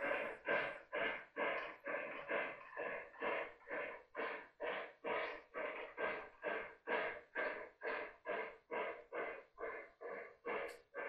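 O gauge model steam locomotive's sound system making a steady chuff, about two and a half puffs a second, as the train runs.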